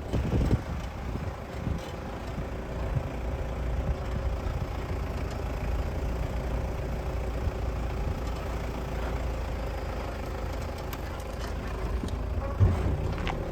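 Motor vehicle engine running steadily with road rumble, and a single knock near the end.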